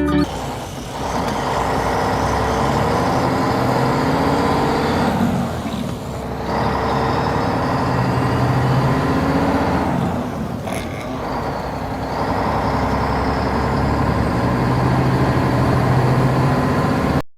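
Heavy truck engine running steadily, with two brief dips about six and eleven seconds in.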